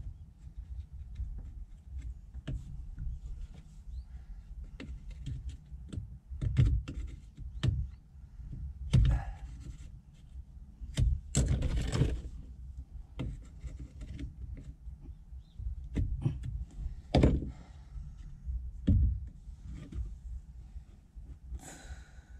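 Hand tools and metal parts clicking and knocking against a vehicle's accelerator pedal assembly during a throttle-wire replacement: scattered light clicks with several louder knocks and short scrapes.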